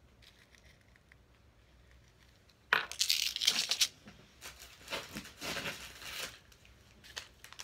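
Quiet room tone, then about three seconds in a sudden bout of rustling and crinkling of plastic packaging as items are rummaged through, loudest for about a second and then coming in shorter bursts.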